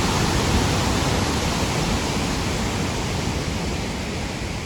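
Iguaçu Falls: the steady roar of massive falling water, slowly getting quieter.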